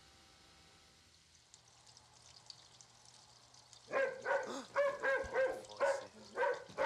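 Faint room tone, then about four seconds in a dog starts barking in a quick run of barks, about three a second.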